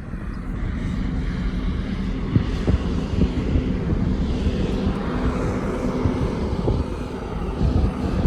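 Steady drone of a car driving, with engine hum and road noise; a hiss swells a little about halfway through, with a few light knocks.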